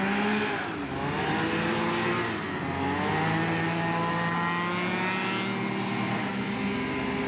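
Racing hovercraft engines running hard, their pitch rising and falling as the craft speed up and slow down, with more than one engine note overlapping.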